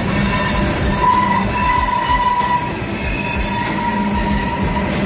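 Freight train cars rolling past at close range: a steady rumble of steel wheels on the rails, with a wavering wheel squeal over it.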